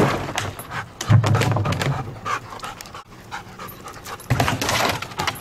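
A yellow Labrador retriever panting close by, in repeated breaths, with a few short knocks and rustles mixed in.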